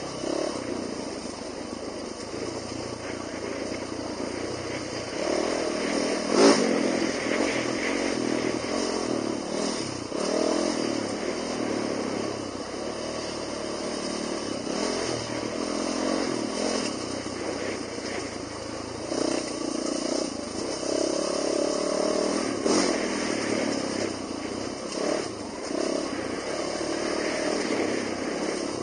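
Dirt bike engine running and revving up and down as it rides over rough trail, with a sharp knock about six and a half seconds in.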